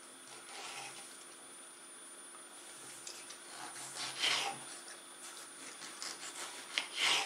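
Kitchen knife slicing a tomato on a wooden cutting board: a few short rasping cuts, the loudest about four seconds in and just before the end, with light clicks between them.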